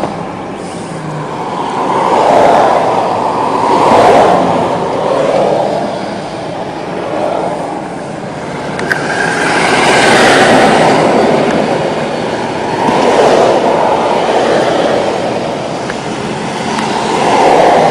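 Continuous rushing vehicle noise that swells and fades every two to three seconds, with no clear engine tone or rhythm.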